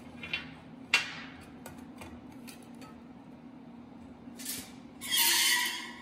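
Sheet-metal pieces and a flattened copper pipe handled on a steel welding table: a few light metallic clinks, one sharp ringing clink about a second in, then near the end a loud scraping slide of metal across the table lasting about a second.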